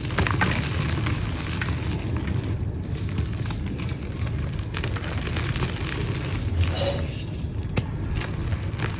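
Dried yellow mud clumps crumbling, a continuous crunching crackle with a few sharper snaps.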